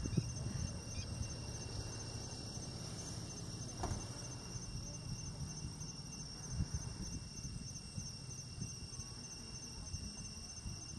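A steady, evenly pulsing high chorus of insects, over low rumbling and rustling with a few soft knocks.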